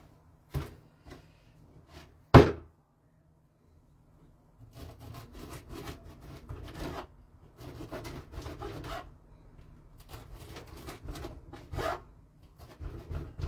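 A knife sawing through a round flatbread on a wooden board, in repeated rasping strokes from about four seconds in. Before that come two sharp knocks, the second one, about two seconds in, the loudest sound.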